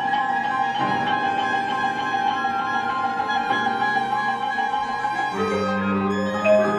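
Contemporary chamber music with violin and cello to the fore: a long high violin note with vibrato held over sustained lower strings, then a new lower chord coming in about five seconds in.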